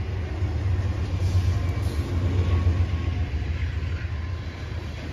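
Pan Am Railways freight train passing close by: the rumble of its diesel locomotives, easing a little after about three seconds as freight cars roll past on the rails.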